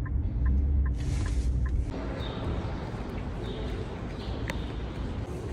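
Inside a moving car, a turn-signal indicator ticks about two and a half times a second over the low rumble of the road. About two seconds in, the sound cuts to footsteps across a parking-garage floor, with a single sharp click later on.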